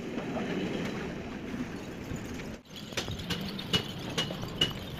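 Indistinct background noise, then after a brief drop-out about halfway, a regular run of sharp metallic taps, a little over two a second, each with a short high ringing note.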